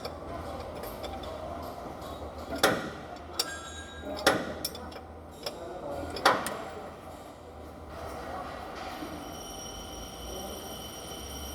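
Metal clanking: three loud sharp knocks a second or two apart, with a few lighter ticks between. A steady high thin tone comes in near the end.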